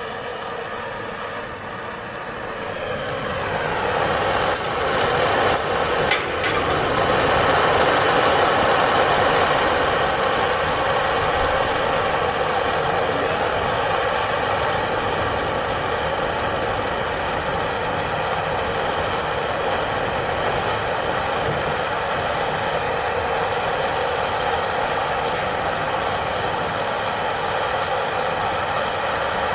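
A machine or motor running steadily, building up over the first few seconds and then holding even, with a couple of brief knocks early on.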